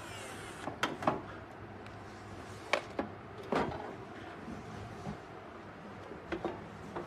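Metal housing of a casting vacuum machine being handled and its cover lifted off: a handful of sharp knocks and scrapes of the panel, the loudest about a second in.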